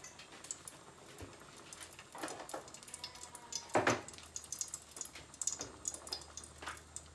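Light kitchen clatter: scattered faint clicks and taps with a few louder knocks, the loudest about four seconds in.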